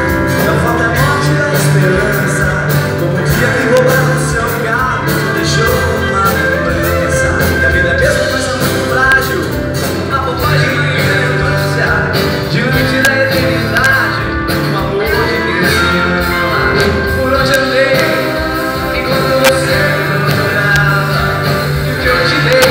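Live pop-rock band playing a Brazilian pop-rock song: electric and acoustic guitars, bass, keyboard and drums, with a melodic line wavering over the steady beat.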